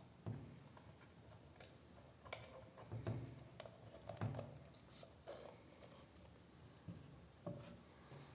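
Faint handling noises: a scatter of light clicks and knocks, busiest in the middle, with one more near the end.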